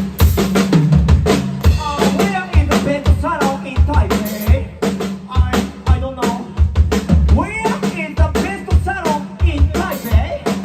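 Band playing live, the drum kit driving a steady beat with kick drum and snare under bass and higher pitched melodic parts.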